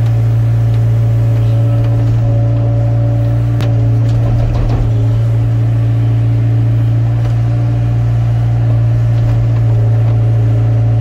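Hyundai excavator's diesel engine running steadily at a constant pitch while it digs, with a sharp click about three and a half seconds in and a brief crunching rattle just after.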